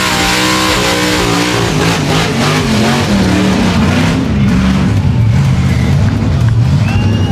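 Car engine revving hard with its pitch wavering up and down, over a constant hiss typical of a burnout. The revs drop to a lower, steadier note about halfway through.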